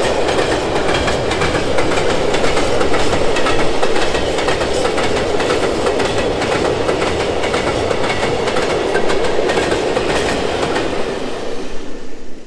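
Freight train of open-top wagons rolling past: a steady rumble of wheels on rails with clickety-clack over the rail joints. It fades away near the end as the last wagon passes.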